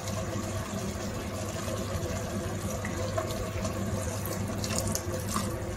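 Vinegar poured in a thin, steady stream from a plastic bottle into a pot of simmering chicken adobo, liquid splashing into liquid.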